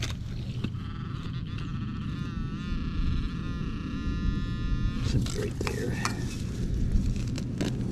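Metal detector sounding a pitched tone from about a second in until about five seconds, wavering in pitch partway through as it passes over a target in a dug hole. This is followed by short scrapes and clicks of digging in dirt.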